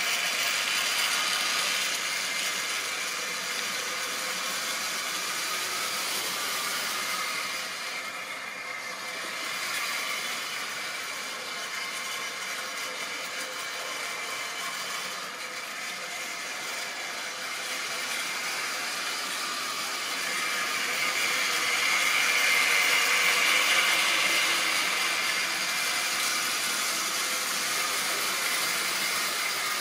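Tri-ang model railway train running on its track, a steady whirring and rattle from the motor and wheels, louder for a few seconds about two-thirds of the way in.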